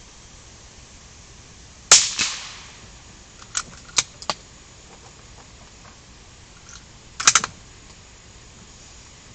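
A single gunshot about two seconds in, its echo trailing off for about a second. A few smaller sharp clicks follow, then a quick cluster of three sharp clacks near the end.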